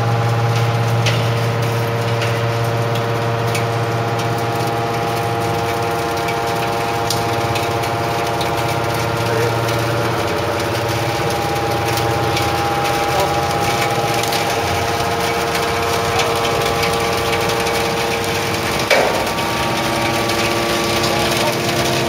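Hydraulic power pack of an Enerpat AMB T250 250-tonne, three-ram mattress-spring baler running: a steady mechanical hum and whine of several held tones. The low hum eases about ten seconds in, and there is a brief knock near the end.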